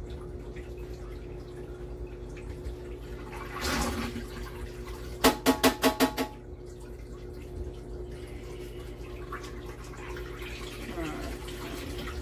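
Portable washing machine running with a steady hum, with water trickling. About five seconds in comes a quick run of about six sharp, ringing knocks.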